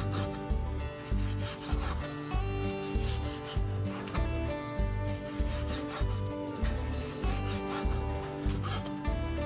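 Cleaver slicing raw pork on a wooden chopping board: the blade rasps through the meat and knocks on the board now and then. Background music with a steady beat plays along.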